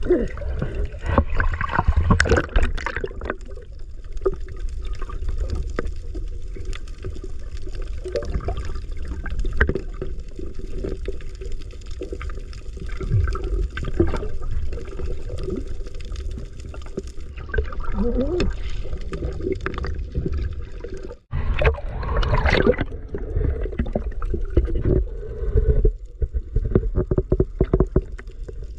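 Muffled underwater sound around freedivers: a steady low water rumble with bubbling and gurgling and many scattered clicks and crackles, with a brief dropout about 21 seconds in.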